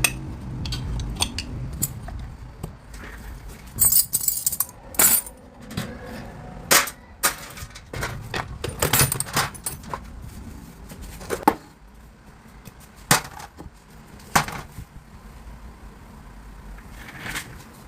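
Irregular sharp metallic clicks and clanks, as of hand tools and metal parts being handled during work on the vehicle, with a couple of brief hissing noises about four and nine seconds in.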